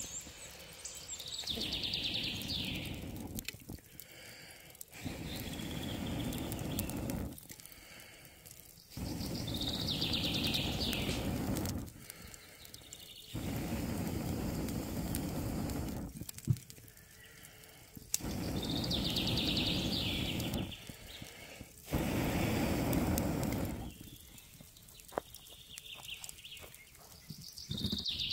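Charcoal fire in a grill being blown on in repeated bursts of rushing air, each two to three seconds long with short pauses between, sending up sparks and making the coals flare into flame. A bird sings a short high phrase about every eight seconds.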